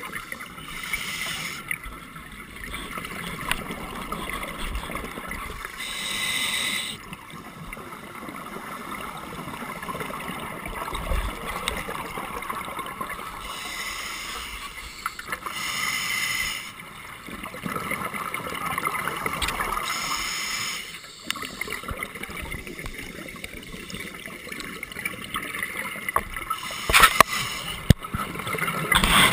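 Underwater sound through a camera housing: a scuba diver's regulator exhausting, with a burst of bubbles every four to five seconds over a steady hiss. Near the end come a few sharp knocks as a shark bumps against the camera.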